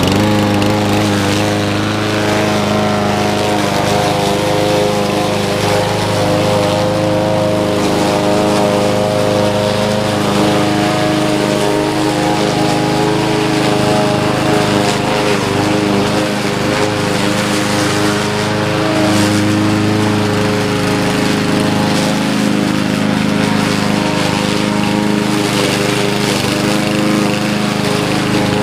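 Cub Cadet 21-inch self-propelled mower's 159cc single-cylinder engine running steadily while its blade cuts through foot-and-a-half-tall grass and weeds.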